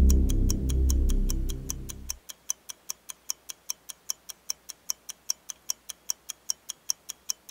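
Low, sustained music fades out about two seconds in, leaving a clock ticking steadily and quickly, about five ticks a second.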